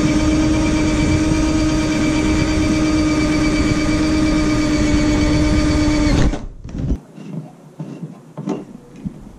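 Electric drill running steadily at one even pitch as a 3/8-inch bit bores out a rivet-nut hole in a car's front bumper. It stops abruptly about six seconds in, and a few small clicks and knocks of tool handling follow.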